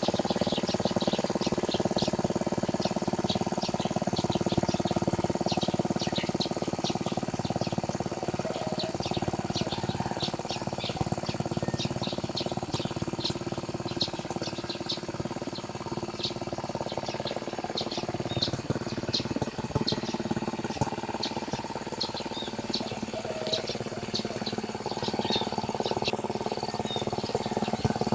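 A small tractor engine runs steadily while plowing a rice paddy, fading somewhat through the middle and growing louder again near the end. Many short, high bird chirps sound over it throughout.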